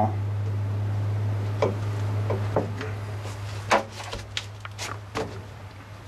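Scattered light clicks and knocks of a shoe working the newly fitted gas pedal against the bare metal footwell, over a steady low hum.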